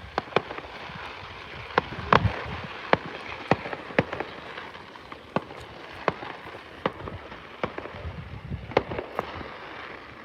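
Aerial fireworks bursting, a string of sharp bangs at irregular intervals, a few of them louder, over a steady hiss.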